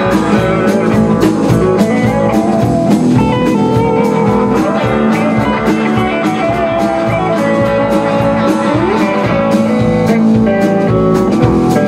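Live rock band playing an instrumental stretch: electric guitars and bass guitar over a drum kit keeping a steady beat.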